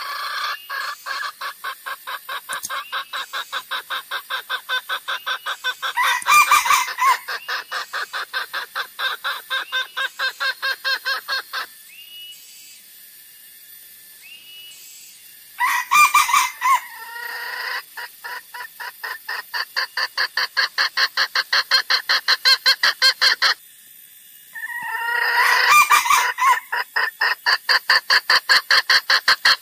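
Junglefowl lure recording: long trains of rapid, evenly repeated clucks, broken about six, sixteen and twenty-six seconds in by louder, harsher calls, with a short lull between about twelve and fifteen seconds.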